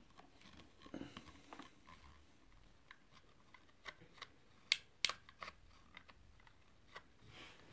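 Scattered small clicks and ticks of a hand blender's plastic housing and a screwdriver being handled during disassembly, with two sharper clicks close together about five seconds in.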